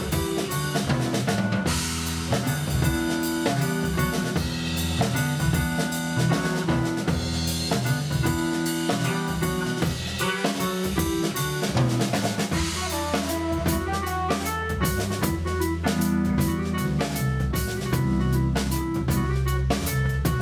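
Live band playing a ridée dance tune in seven beats: drum kit driving the rhythm under keyboard, soprano saxophone, clarinet and electric guitar.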